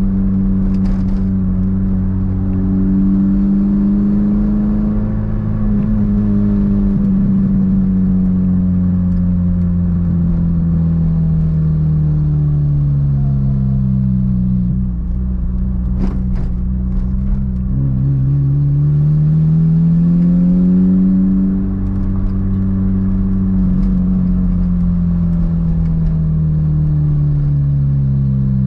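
Toyota MR2's four-cylinder engine heard on the move: its note sinks slowly as the car slows, climbs briefly under acceleration about two thirds of the way through, then eases off and falls again. One sharp click partway through.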